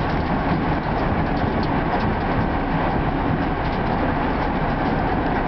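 Race car limo running on track, heard inside its stripped, roll-caged cabin: a steady, loud mix of engine and road noise.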